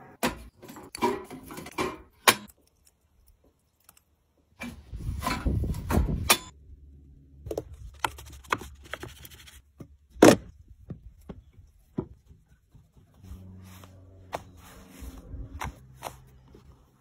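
Close-up pizza-dough handling: a dough scraper scraping and knocking against a plastic dough tray, and dough being lifted and worked on a wooden board. It comes as scattered scrapes, clicks and knocks, with one sharp knock about ten seconds in.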